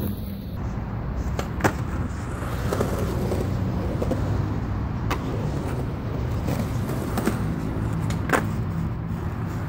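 Skateboard wheels rolling on concrete with a steady rumble, broken by three sharp clacks of the board, the loudest near the end as the board is flipped over the bank.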